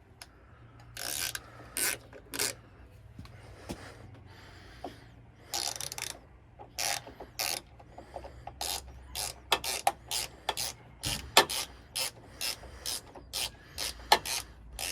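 Hand ratchet wrench clicking in short strokes while turning the bolts of a door latch. The strokes are sparse at first and come steadily about twice a second in the second half.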